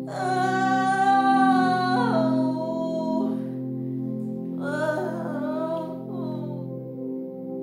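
Background music: a song with a singing voice holding long notes over steady sustained chords, in two phrases, the second about halfway through.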